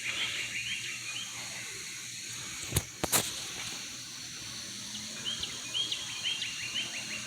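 A songbird singing fast trills of short, quickly repeated chirp notes near the start and again in the second half, over a steady high outdoor hiss. Two sharp clicks about three seconds in.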